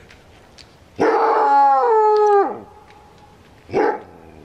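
A trapped coyote gives one long howl, about a second and a half, that steps down in pitch and trails off in a falling glide, then a single short, sharp bark near the end.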